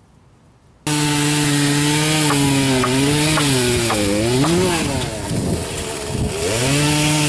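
Chainsaw running at high revs and cutting through a log, starting abruptly about a second in. Its pitch sags under load in the middle of the cut, twice between about four and six seconds in, then climbs back.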